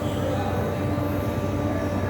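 Steady mechanical running noise: a low, even hum with a few constant tones over it.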